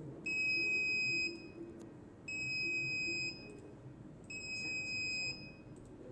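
Wi-Fi NVR's built-in buzzer alarm sounding, set off by motion detection: three high, steady beeps of about a second each, one every two seconds.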